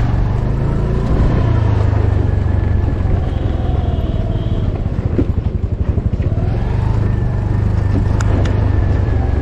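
TVS Jupiter 125 scooter's single-cylinder four-stroke engine running while being ridden, its note rising and falling with the throttle, with a heavy low rumble of wind on the microphone.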